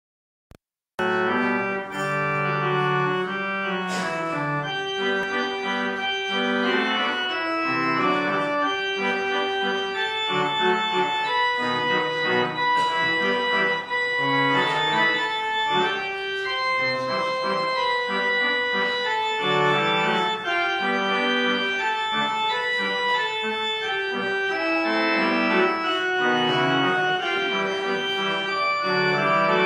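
Church organ music playing held chords under a moving melody, starting about a second in.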